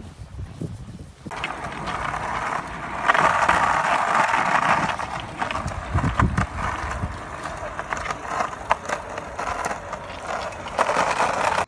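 Skateboard wheels rolling over asphalt, with a steady rolling rumble and scattered short clicks, starting about a second in.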